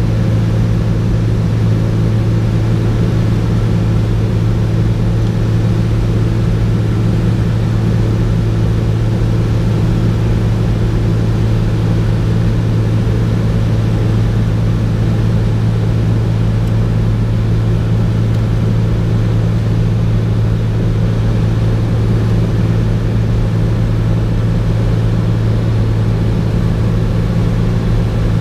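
Cessna 210's six-cylinder piston engine and propeller droning steadily in cruise flight, heard from inside the cabin.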